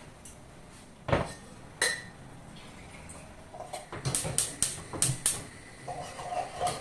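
Kitchen utensils knocking and clinking against pans and dishes: a sharp knock about a second in, another a little later, then a quick run of clinks around four to five seconds in.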